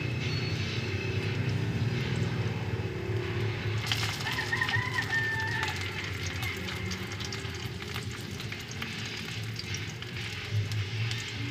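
A rooster crows once, about four seconds in: a stepped call that ends in a long held note. Under it, a low rumble in the first few seconds and the light crackle of the wood fire under the wok.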